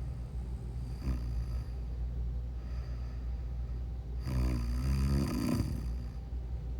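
A sleeping person snoring: a short snore about a second in and a longer, louder one about four seconds in, over a steady low hum.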